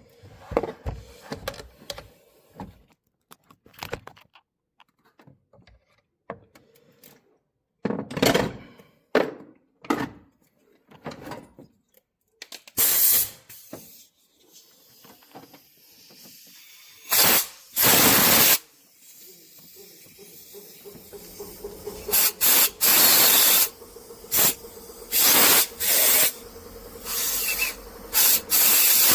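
Tools clicking and knocking against metal, then from about halfway a hiss with several loud, short blasts of spraying air or aerosol cleaner.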